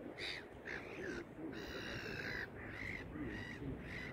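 Gulls calling: a run of short, harsh calls, about six in all, with one longer call in the middle.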